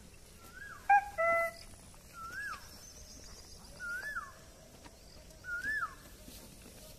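An animal's short whistled note, rising then falling, repeated about every second and a half. About a second in, a louder two-note call with a ringing, overtone-rich tone.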